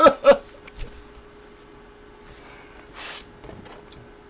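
A short burst of a man's voice at the very start, then faint handling sounds: small clicks and soft rubs, with a brief swish about three seconds in.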